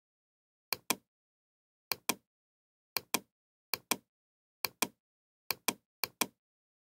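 Computer mouse button clicking seven times, each click a quick press-and-release pair of sharp snaps, with dead silence between them.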